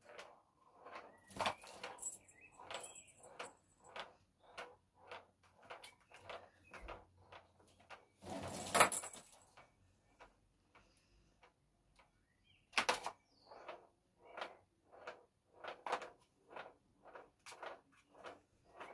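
A plastic ball-track cat toy knocking and rattling as kittens bat the ball around it: a steady run of light knocks about twice a second, sharper clicks now and then, and a louder clatter lasting about a second near the middle.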